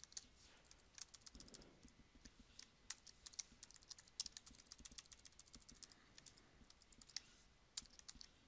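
Faint computer keyboard typing: short, irregular key clicks in quick runs.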